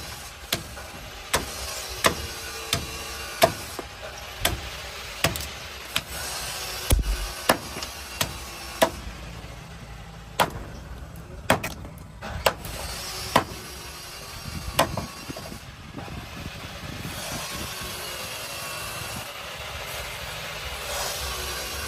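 Kukri-style blade made from a chainsaw chopping and shaving a green wooden stick against a wooden beam, sharp chops a little more than once a second, stopping about fifteen seconds in.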